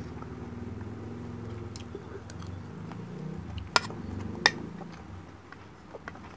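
Close-miked chewing of a mouthful of rice and fried milkfish, with faint wet mouth clicks. About four seconds in, a metal spoon clicks sharply twice against the plate while scooping rice.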